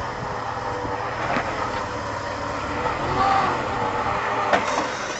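An off-road vehicle's engine running steadily, with a couple of sharp knocks, one about a second and a half in and one near the end.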